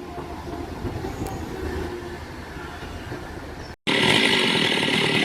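Low rumble of heavy machinery with a steady hum and a few faint clanks, then after a sudden cut near the end a chainsaw running loudly.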